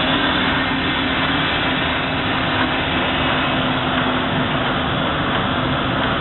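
Profile sandblasting cabinet running: a steady hiss of compressed air blasting corundum grit through several nozzles, over a steady low hum.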